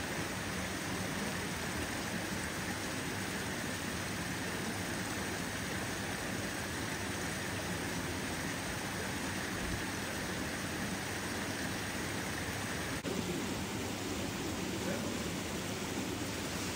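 Steady rushing of water flowing through the stone channels and ponds of a trout farm, with a brief click about thirteen seconds in.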